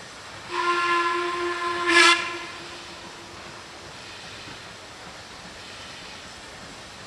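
Steam locomotive whistle sounding one blast of about two seconds, loudest just before it cuts off, over a steady hiss.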